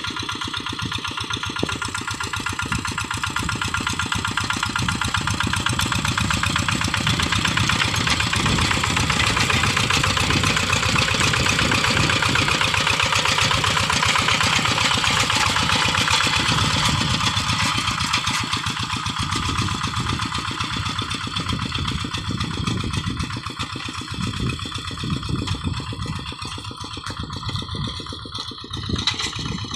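Single-cylinder Kubota diesel engine of a Quick G1000 two-wheel hand tractor running steadily while working a rice paddy. It grows louder through the middle and eases off toward the end.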